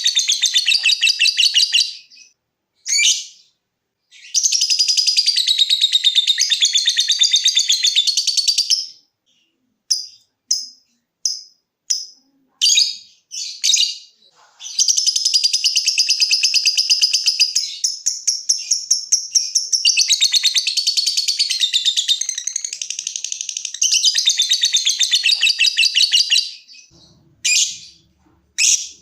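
Lovebird ngekek: long bouts of rapid, high-pitched chattering trill. After a short first bout comes one of about five seconds, then a long one of about twelve seconds, broken by short single chirps in between.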